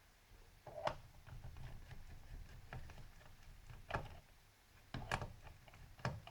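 Screwdriver work on the screws of an Asus F3S laptop's bottom case: four short, light clicks and knocks spread across a few seconds, with faint handling noise between them.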